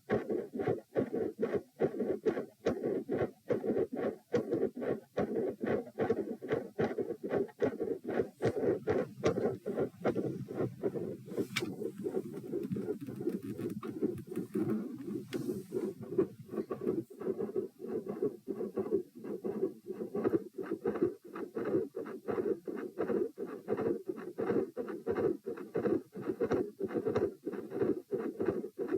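Human heartbeat recorded against the chest: a steady run of paired beats with a constant rushing sound filling the gaps between them, from a heart that has split first and second sounds and murmurs. A couple of brief scratchy rubs come near the middle.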